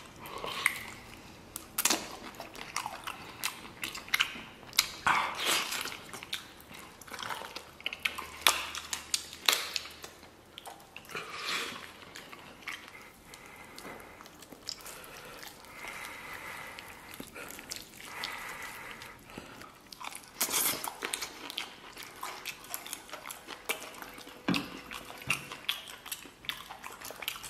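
A person biting and chewing a braised cow hoof and its tendon, with irregular clicking mouth noises.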